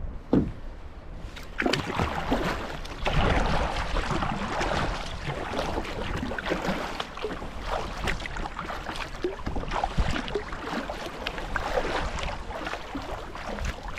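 Kayak paddle blades dipping into calm sea water and splashing with each stroke as the kayak is paddled along, the splashes coming at an uneven pace.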